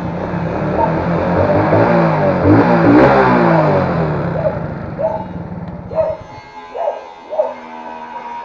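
A motor vehicle's engine running, growing louder to a peak about three seconds in, its pitch sweeping, then fading away by about six seconds, as of a vehicle passing close by.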